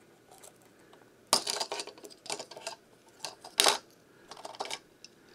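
Plastic clicks and knocks as the removable top hatch is pried off a Lionel Legacy GP35 model diesel locomotive's body. After about a second of quiet comes a string of sharp clicks, the loudest a little past the middle.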